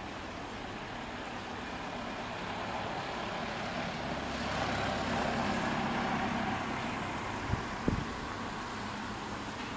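Street traffic: a motor vehicle passes, swelling about halfway through and then fading, over a steady background of road noise. Two short thumps come near the end.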